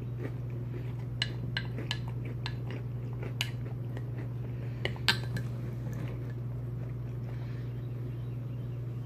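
A spoon clinking against a cereal bowl about seven times as cereal and milk are scooped up, the loudest clink about five seconds in, over a steady low hum.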